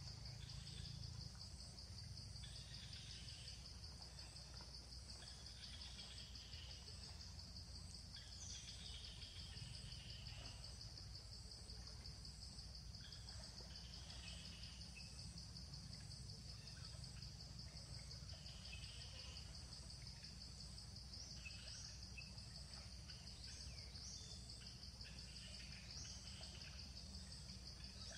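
Faint outdoor ambience: a steady, finely pulsing high drone of insects, a low background rumble, and scattered short chirps.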